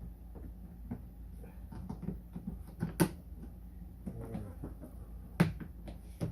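Hard plastic ride-on toy parts being handled and fitted to the body: scattered light clicks and taps, with two sharp knocks about three seconds in and again over five seconds in.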